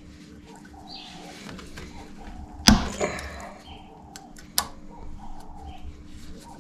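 A few sharp clicks and knocks of hand tools working on a motorcycle's front brake caliper, the loudest about two and a half seconds in and another about two seconds later, over a faint steady hum.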